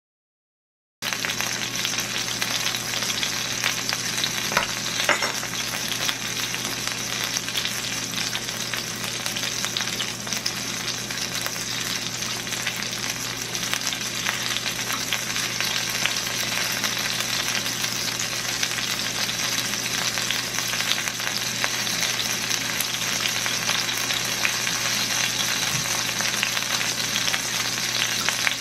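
Flour-dredged chicken breast frying in oil and butter in a stainless steel skillet, a steady dense sizzle and crackle that cuts in suddenly about a second in.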